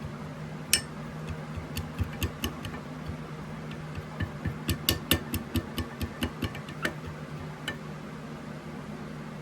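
Microwave oven running with a steady low hum while it heats a cup of soft plastic for pouring lures, with a scatter of sharp clicks, quickest in a run through the middle.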